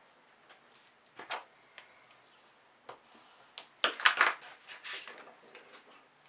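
Bone folder rubbed along the folds of a clear acetate sheet to crease them, a few short scraping strokes with the loudest run of rubbing about four seconds in.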